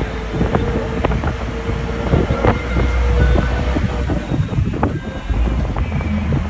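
Vehicle moving along a road: a steady low rumble with frequent rattles and knocks, and wind buffeting the microphone.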